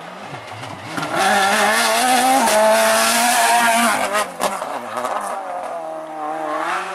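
Renault Clio Maxi rally car's four-cylinder engine at high revs as the car comes up and passes close by, loudest from about a second in to about four seconds in, with a drop in pitch partway through. A few sharp cracks come around four seconds in, then the engine revs rise again as the car pulls away.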